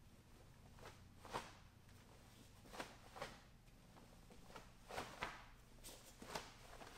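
Faint, short brushes and soft thuds of bare feet stepping and pivoting on foam mats, with the cotton uniform swishing as each move is made. There are about ten of them, several in quick pairs, against near silence.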